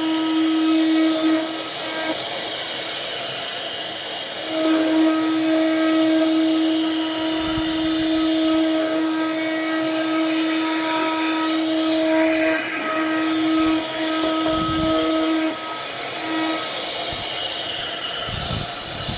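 Electric woodworking machine running with a steady high motor whine. The tone drops out for about three seconds a couple of seconds in, and briefly twice more later.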